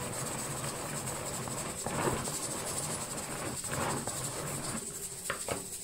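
Hand-cranked food chopper being turned, its gears and spinning blades whirring steadily through chopped green herbs, with a few clicks near the end.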